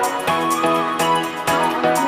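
Instrumental background music, with new notes coming in about twice a second.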